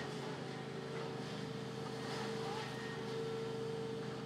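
Heavy demolition excavators' diesel engines running steadily, including a Cat hydraulic excavator, with a faint backup-alarm beep near the middle.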